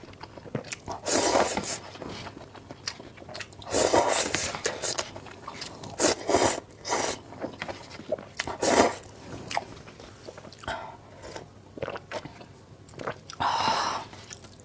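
Close-miked eating of spicy instant noodles: chewing and biting, broken by about five louder noisy bursts lasting up to a second each.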